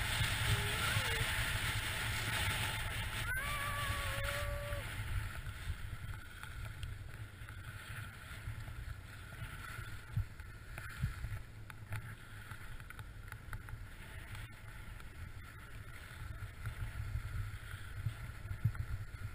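Wind buffeting a moving body-worn camera's microphone over the hiss of skis or board sliding across snow, louder for the first several seconds and then easing.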